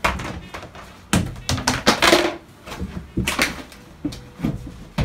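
A scuffle on a concrete floor: a string of sharp thuds and knocks, with a longer scrape about two seconds in, as a body and a plastic storage tote hit the floor.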